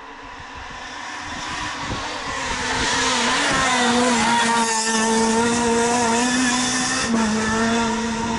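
Renault Clio R3 rally car's four-cylinder engine at high revs, growing steadily louder as the car approaches over the first four seconds, with a brief dip and rise in pitch about three seconds in.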